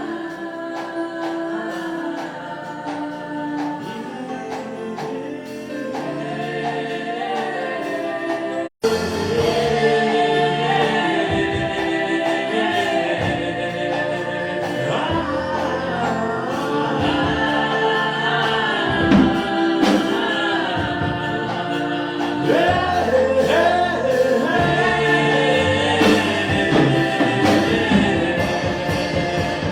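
Gospel song with choir singing over a musical backing. The sound cuts out for an instant about nine seconds in, then comes back fuller with a steady beat.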